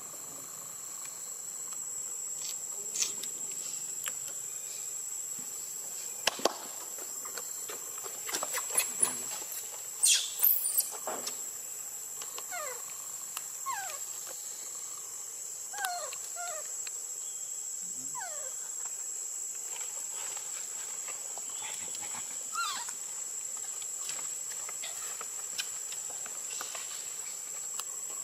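Baby macaque crying: short, high, falling squeals in clusters, loudest in a burst about ten seconds in. Under them runs a steady high insect drone.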